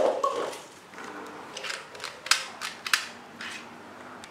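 Stacked paper cups knocked down by a toy gun shot, then a string of light knocks and clatters as the cups land and roll on the floor.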